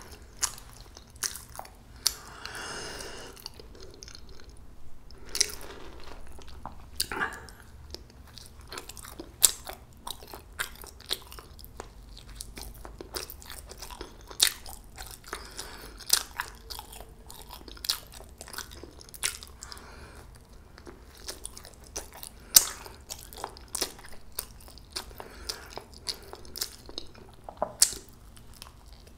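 A person chewing jeungpyeon, a soft, spongy Korean steamed rice cake, with many sharp, irregular wet mouth clicks and smacks. She takes a fresh bite near the end.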